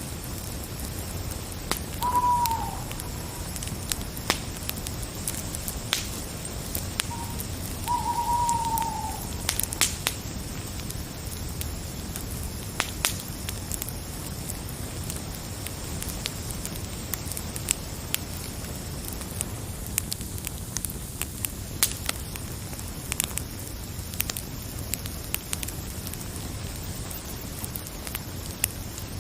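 A fire crackling, with sharp pops and snaps scattered over a steady hiss. Twice, about two and eight seconds in, a short call drops slightly in pitch, and a faint high steady chirring, like crickets, fades out about two-thirds of the way through.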